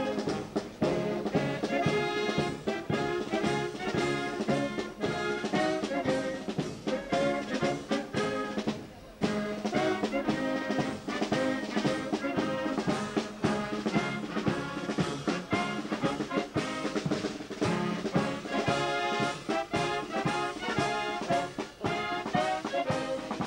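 Military wind band playing a march while marching: brass, saxophones and clarinets over a steady drum beat. The music briefly drops out about nine seconds in.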